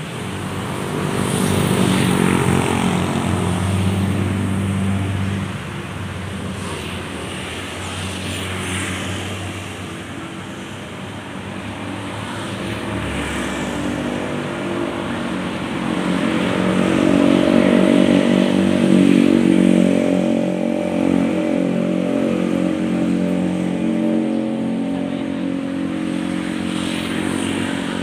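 A motor vehicle engine running steadily, growing louder about two seconds in and again from about sixteen to twenty seconds in.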